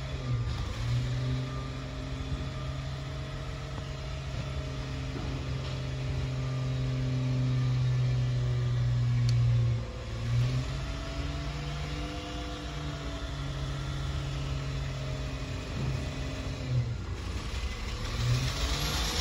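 Garbage truck's diesel engine running and revving, its pitch rising and falling several times.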